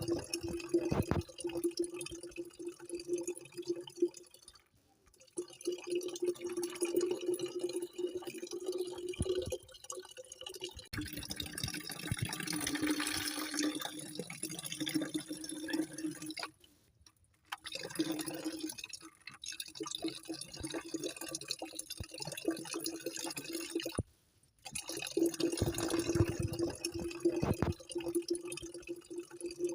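Running, trickling water with a steady low hum, broken by short drop-outs about five, seventeen and twenty-four seconds in.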